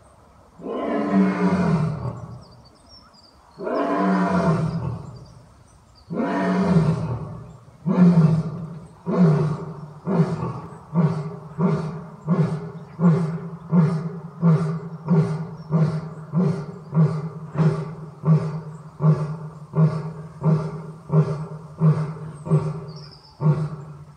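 Male lion roaring: three long roars that fall in pitch, then a long run of short, deep grunts, about one every three-quarters of a second, ending the roaring bout.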